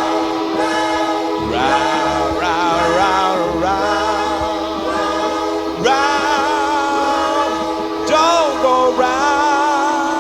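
Music with singing: sung phrases with vibrato over a steadily held note.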